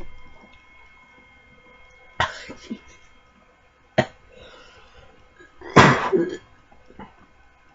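A person coughing in three short bouts, the last and loudest about six seconds in, the throat burned by very hot chili food.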